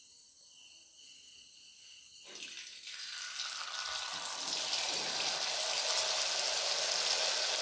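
Batter-coated potato stick frying in hot oil in a steel kadai: near silence at first, then a sizzle starts about two and a half seconds in, grows louder and settles into a steady hiss.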